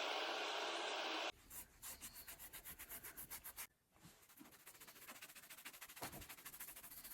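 A power tool's steady noise cuts off abruptly about a second in. Quick, rhythmic back-and-forth rubbing strokes follow: wood being hand-sanded, with a brief pause in the middle.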